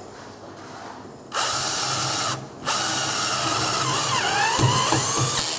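Cordless drill/driver driving a self-tapping screw into 1/16-inch steel. It runs for about a second, stops briefly, then runs again for about three seconds, its pitch dipping and recovering near the end.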